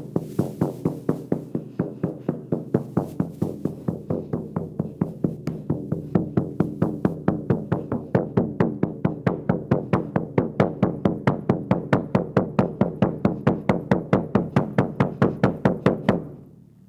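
Large hand-held frame drum beaten with a padded beater in a steady, even pulse of about four strokes a second, each stroke ringing low. The drumming stops abruptly near the end.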